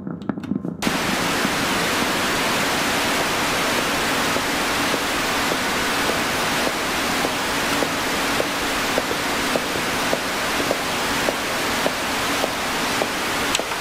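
A loud, even hiss of noise that starts abruptly about a second in and cuts off suddenly at the end, with faint ticks under it in the second half.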